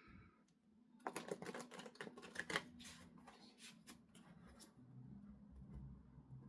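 A Light Seers Tarot deck being shuffled by hand: a quick run of papery clicks and slaps from about a second in, lasting some four seconds, then quieter handling of the cards.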